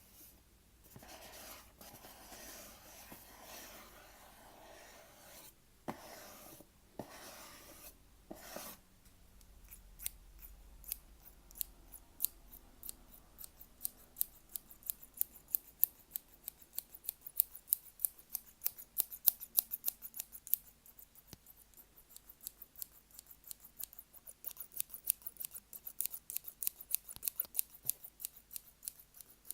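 Close-miked ASMR trigger sounds: a rubbing, scratching noise for about the first nine seconds, then a long run of rapid, crisp clicks, several a second, that sound like snipping.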